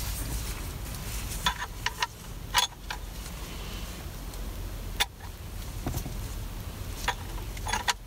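Scattered light clicks and clacks of hardware being handled while fitting a steering wheel to its hub, about eight in all, over a low steady rumble.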